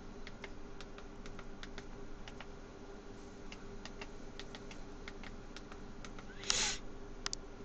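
Typing on a computer keyboard: irregular key clicks, with a short, louder rustling burst near the end.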